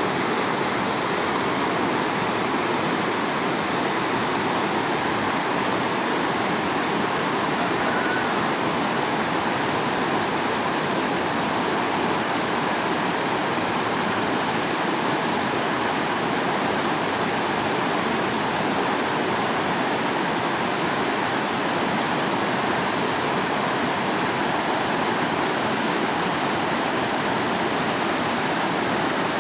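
Flowing water rushing steadily and evenly, like a stream or small waterfall, with no change in level.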